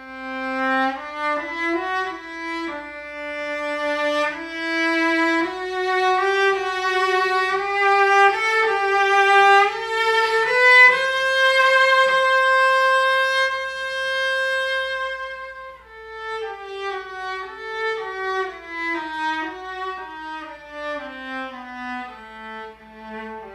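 A solo violin bowed through a slow melody. The notes climb step by step to a long held high note about halfway through, then step back down.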